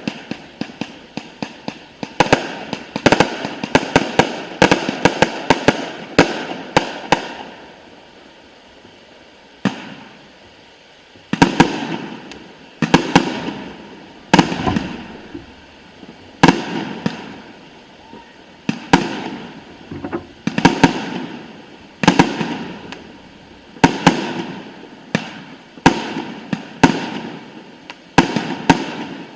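Aerial fireworks display: shells bursting in fast clusters of sharp bangs, each trailing off in echo. About a third of the way in there is a brief lull with a single bang, then the bursts resume every second or two.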